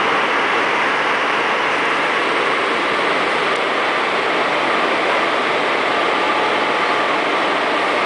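WAG-7 electric locomotive standing with its blowers running: a loud, steady rushing noise that holds at one level throughout.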